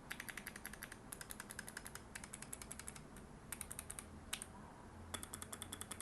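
Fast typing on a mechanical keyboard with Kailh Box Jade clicky switches: quick runs of sharp, crisp clicks, broken by a couple of brief pauses in the second half.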